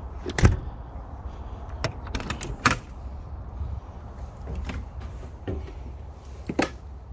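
A motorhome's entry door and latches being handled and its entry steps climbed: a few sharp clicks and knocks, the loudest about half a second in, near three seconds in and once more near the end, over a steady low rumble.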